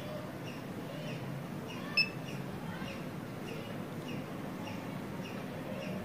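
A single short electronic beep from the handheld ticketing machine about two seconds in, over a steady background hum. Small repeated bird chirps run in the background, about two a second.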